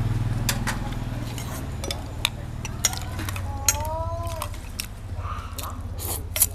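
Metal spoon and chopsticks clinking now and then against stainless steel bowls while noodle soup is ladled and eaten, over a low motorbike engine sound that fades away in the first couple of seconds.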